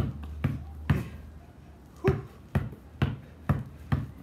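Two basketballs dribbled hard on concrete: sharp bounces about two a second, with a pause of about a second after the third bounce.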